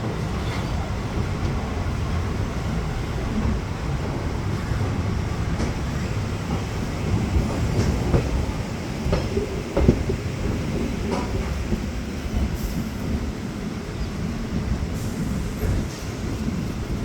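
DEMU (diesel-electric multiple unit) train running: a steady low rumble with scattered short knocks and clatters from the wheels and carriages.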